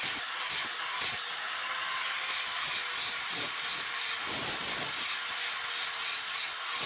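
Electric angle grinder with a wire wheel running, brushing rust off a steel razor blade: a steady motor whine under a hissing scratch of wire on metal.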